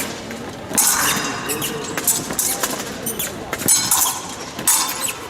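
Épée fencing bout in progress: blades striking and scraping together in a run of sharp metallic clicks, several with a brief high ring, amid quick footwork on the piste.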